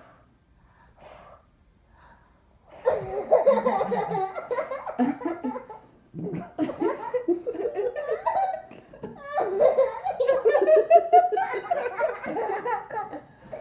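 A few faint, short puffs of a child blowing at a birthday candle. About three seconds in, loud belly laughter breaks out and goes on in bouts.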